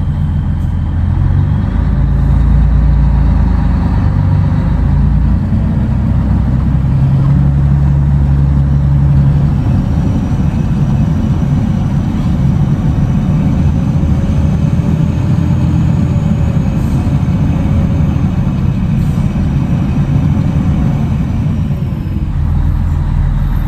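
Scania 113 truck's six-cylinder diesel engine running under way, heard from inside the cab: a steady low drone whose note shifts a few times, about two seconds in and again around seven and ten seconds.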